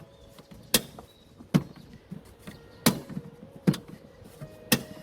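Five sharp metallic clicks about a second apart, from a T-handle spark plug spanner being turned to tighten a new spark plug.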